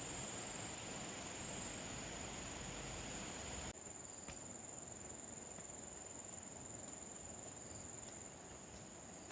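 Steady high-pitched insect drone, like crickets, over a faint hiss; the hiss drops abruptly about three and a half seconds in, while the insect tone carries on.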